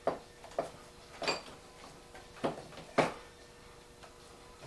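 Five sharp knocks and clunks of hard parts or tools being handled and set down, spaced irregularly over about three seconds.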